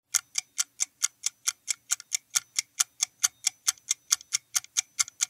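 Countdown-timer sound effect: a clock-like tick repeating evenly, about five ticks a second, while the answer time runs down.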